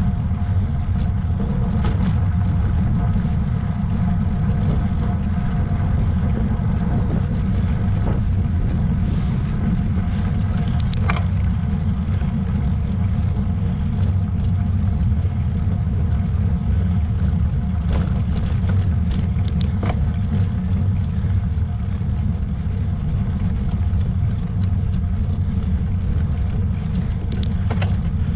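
Steady low rumble of wind and road noise on the microphone of a camera travelling up a hill road, with a few faint clicks.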